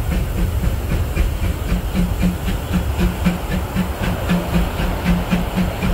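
Disneyland Railroad steam locomotive E.P. Ripley, a 4-4-0, chuffing steadily under way at about three exhaust beats a second with a hiss of steam, heard from an open car coupled right behind it, over the rumble of the train running on the track.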